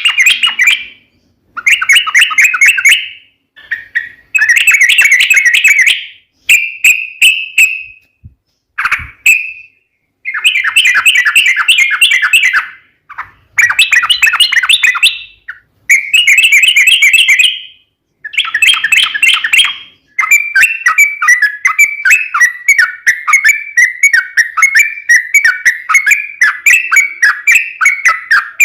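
Yellow-vented bulbul (trucukan) singing in quick, bubbly chattering phrases of a second or two with short pauses between them. About two-thirds of the way in, the song becomes one long unbroken run, the long 'ropel' song that keepers play to lure a bird into answering.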